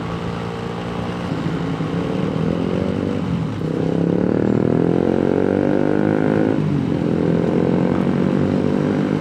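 Yamaha RX-King two-stroke single-cylinder motorcycle engine running under way. It revs up, dipping briefly about three seconds in and again near seven seconds.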